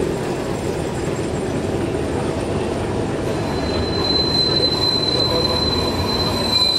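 Vintage tram and trailer rumbling along the rails through a curve. About halfway through, a steady high-pitched squeal of the wheels rounding the bend sets in.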